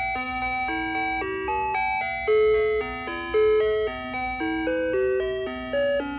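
Battery-powered animated Christmas bear motionette playing a Christmas tune in square-wave electronic tones: a beeping melody over a lower bass line, the notes stepping along a few times a second.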